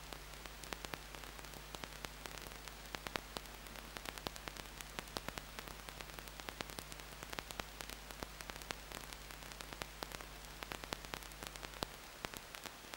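Electrical static from a nest-box camera's audio line: a steady hiss with dense irregular crackling clicks over a low mains hum. The hum cuts out near the end.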